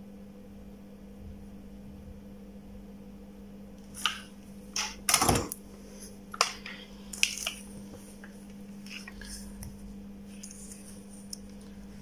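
Light clicks and clinks of small metal bulb holders and wires being handled, scattered between about four and nine and a half seconds in, over a steady low hum.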